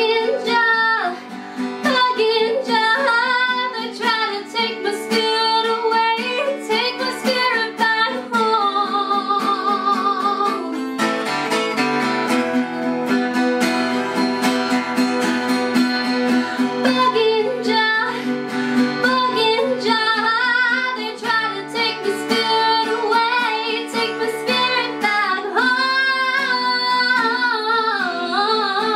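A woman singing with vibrato on her held notes, accompanied by an acoustic guitar. About eleven seconds in, her voice breaks off briefly while the guitar carries on.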